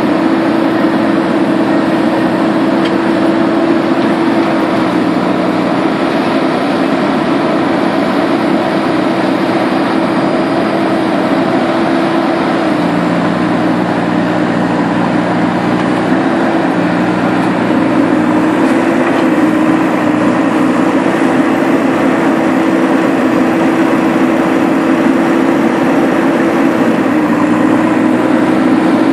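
JCB backhoe loader's diesel engine running steadily while the backhoe arm digs earth, its hum shifting slightly in pitch a few times.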